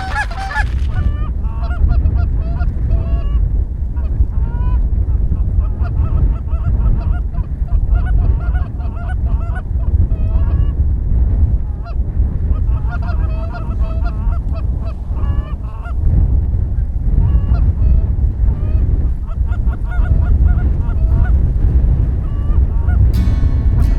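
A flock of Canada geese honking, many calls overlapping, over a loud low rumble.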